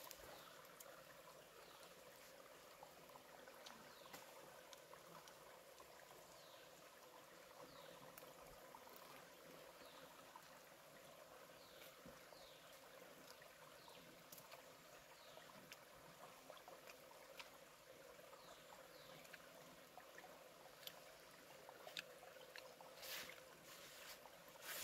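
Faint outdoor ambience: a soft steady hiss with short falling chirps every second or two, and a few sharp clicks near the end.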